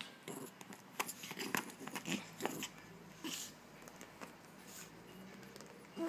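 A Pomeranian chewing on another dog's plastic cone collar: teeth clicking and scraping on the hard plastic, with the bites busiest between about one and three and a half seconds in.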